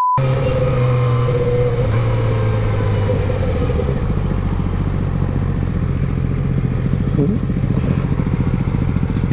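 Suzuki GSX-R600's inline-four engine running steadily at low revs, the pitch easing down slightly in the first couple of seconds.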